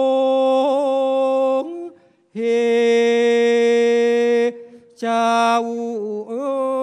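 Thai khap sepha recitation: a solo voice sings long, drawn-out held notes broken by short pauses, with a small upward slide in pitch near the end. A single sharp click sounds about five seconds in.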